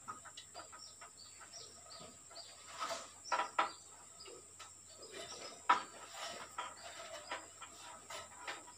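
Aluminium ladder knocking and creaking under a man's feet and hands as he climbs down it: a scatter of short clicks and knocks, the loudest a sharp knock just past halfway, over a steady high-pitched hiss.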